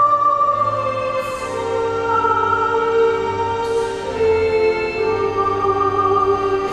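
Mixed church choir singing a slow hymn with organ accompaniment, in long held chords that move to a new chord every second or two.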